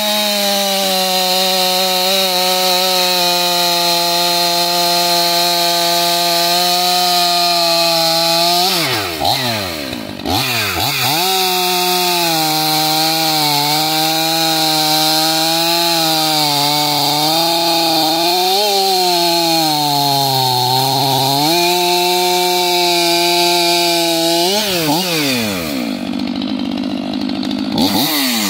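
Stihl MS 500i fuel-injected two-stroke chainsaw with a 25-inch bar and semi-skip chain, run at full throttle through wood. Its pitch sags as the chain loads in the cut. The revs drop and climb back about nine seconds in, dip deeper a little past the middle, and fall away near the end.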